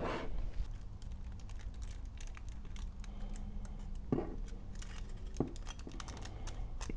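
Faint small clicks and crinkling from handling and prying open a two-piece aluminium soft-plastic bait mold lined with aluminium foil, over a faint steady hum.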